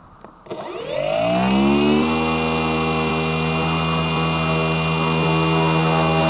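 Sunnysky X2220 brushless motor turning a 9x7.5 propeller on a Mini Talon wing, spinning up with its pitch rising for about a second and a half, then running steadily at high throttle.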